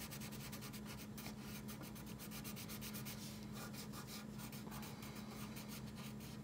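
Wax crayon rubbed quickly back and forth across paper, coloring in a large area in a fast, even run of scratchy strokes.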